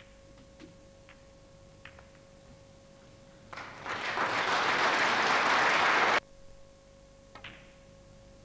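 Snooker audience applauding. It starts about three and a half seconds in, swells, and is cut off abruptly about two and a half seconds later.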